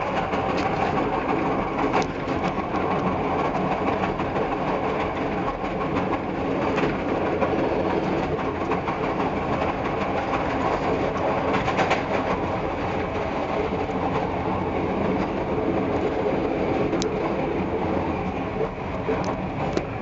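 Passenger train running along the track, heard from inside its last car: a steady rumble of wheels on rails with a few sharp clicks now and then.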